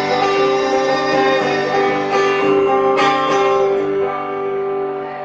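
Guitar strumming the closing chords of a song. A few strokes come in the first three seconds or so, then the last chord rings and fades.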